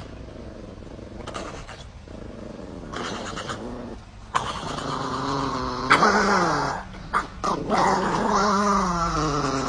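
Dog growling and grumbling in pitched, wavering stretches, loudest about halfway through and again near the end, worked up during play over a stick.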